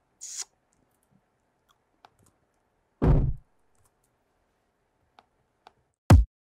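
Short electronic one-shot samples auditioned one at a time through the computer. There is a brief hissy hit just after the start, a heavy distorted hit with deep low end about three seconds in, and near the end a quick hit that drops sharply in pitch. Faint mouse clicks fall in between.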